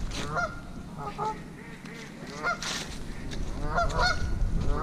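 A flock of Canada geese honking on the water, the calls coming in scattered bunches with a lull around the middle.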